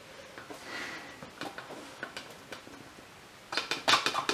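Scattered light clicks and clacks of hand tools and clips handled against a motorcycle wheel rim while a tire is being mounted by hand, with a quick run of sharper clicks and knocks near the end.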